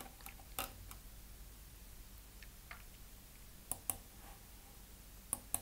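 Faint computer mouse clicks: a single click under a second in, then two quick pairs of clicks, one about two-thirds of the way through and one at the end.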